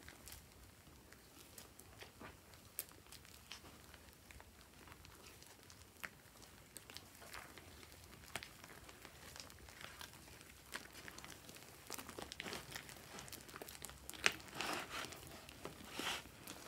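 Hands kneading and squeezing fluffy slime: soft sticky crackling and popping clicks, growing denser and louder in the last few seconds as the slime is lifted and stretched.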